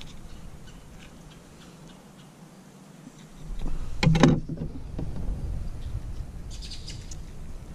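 Knife and hands working a whole fish on a plastic cleaning board as it is gutted: quiet cutting and handling sounds, with one louder thump about four seconds in.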